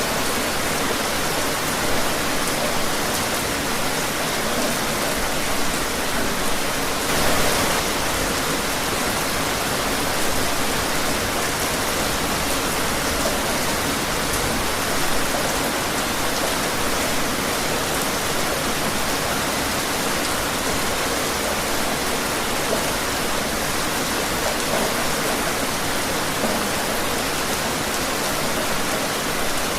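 Steady rain falling outside: an even, continuous hiss with small swells in loudness and faint scattered drops.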